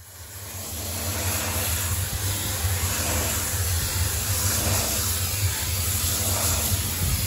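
DOFF steam cleaner's lance spraying high-heat, low-pressure steam onto brickwork: a steady hiss over a low drone, fading in over about the first second.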